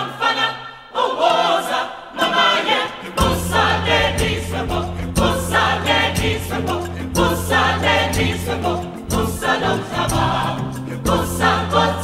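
Music for the dance: a choir of voices singing, joined by a steady low bass about three seconds in.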